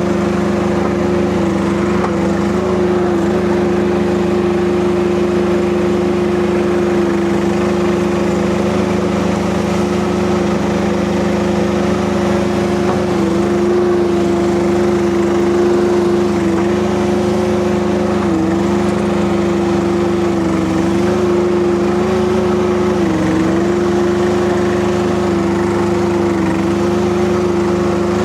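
Kubota diesel engine of a Rippa RS04 mini skid steer running steadily at working speed. Its pitch dips briefly several times as it takes load.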